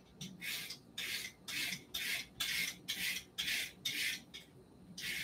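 Vegetable peeler shaving thin strips off a daikon radish held in the hand: short scraping strokes, about two a second.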